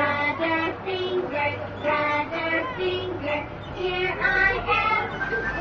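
A children's song played through a coin-operated kiddie ride's speaker: a high, child-like sung voice carries a melody of short held notes over music.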